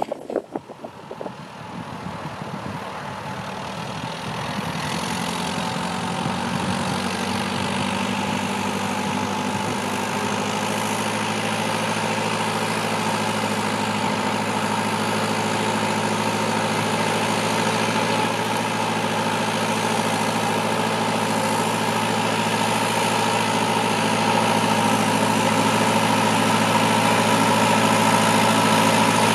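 Fortschritt ZT tractor's diesel engine running steadily. It builds up over the first few seconds, then holds an even pitch while slowly growing louder.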